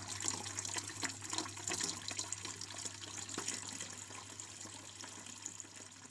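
Water from a fountain's spout splashing into its stone basin, a steady splashing that slowly fades out over the last few seconds.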